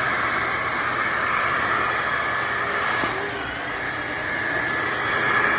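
Shark HydroVac MessMaster wet-dry vacuum mop running steadily, a motor whine over suction noise, easing slightly about three seconds in and then building back.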